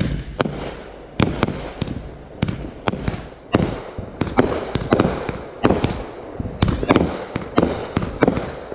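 Fireworks going off in quick succession: sharp bangs and cracks, two or three a second at uneven spacing, with crackling noise between them.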